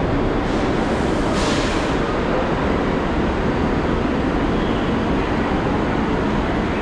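New York City subway train running, a steady loud rumble with a brief hiss about a second and a half in.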